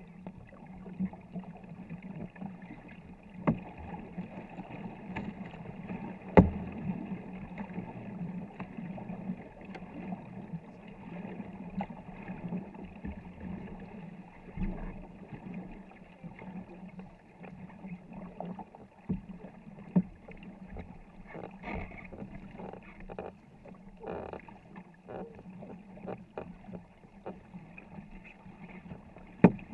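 Crew paddling a 24-foot war canoe: a steady wash of paddle strokes and water along the hull, with a few sharp knocks, the loudest about six seconds in.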